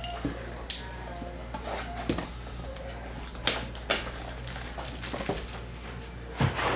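Hands handling a shrink-wrapped Topps Chrome Baseball blaster box on a desk: about five short, sharp knocks and clicks of cardboard and plastic wrap, the loudest about four seconds in and near the end.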